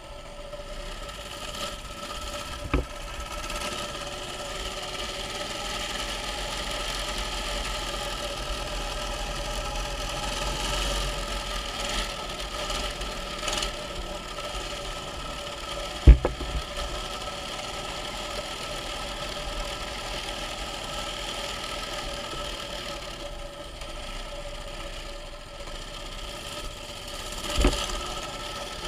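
Mini bike's small engine running steadily while riding, with a low rumble underneath. Three sharp knocks come through, about three seconds in, about sixteen seconds in (the loudest) and near the end.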